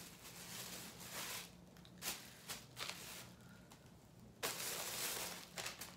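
Rustling from handling pieces of cloth, in several short spells, the longest and loudest near the end.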